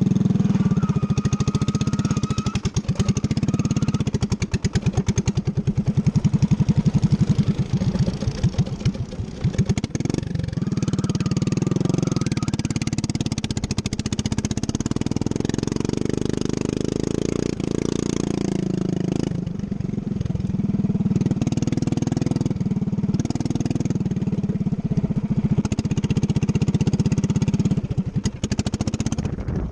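Racing ride-on lawn mower engine running, its speed rising and falling with the throttle.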